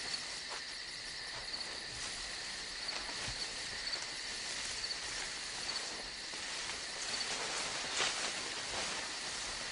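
Forest ambience of insects calling steadily at two pitches, one high and one lower, with a short chirp repeating about once a second and a few faint snaps and rustles.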